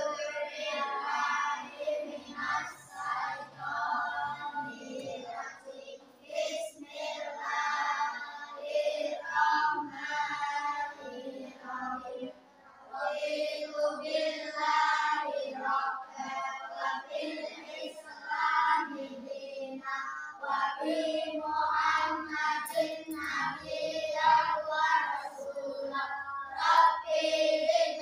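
A group of children reciting a prayer together in unison, in a sing-song chant.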